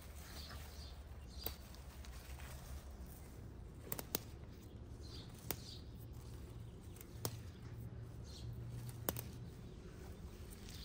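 Faint birds chirping over a low steady hum, with a few sharp clicks or snaps scattered through.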